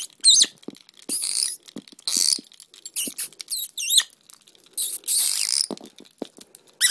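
A dwarf parrot giving short, high, wavering squeaks several times, between bursts of hissy rasping noise and light clicks.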